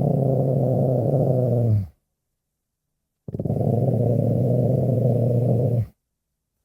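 A low animal growl, heard twice: two sustained growls of about two seconds each, with a pulsing texture, separated by a second or so of dead silence.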